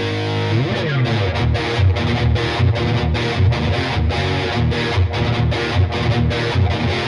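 B.C. Rich Virgo electric guitar played with heavy distortion: a fast rhythmic riff broken by short gaps, with a slide in pitch shortly before a second in.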